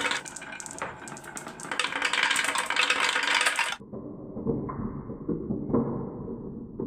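Marbles clattering and rolling down a marble run in dense, rapid clicks. About four seconds in, the sound cuts abruptly to a duller, muffled rolling with a few separate knocks.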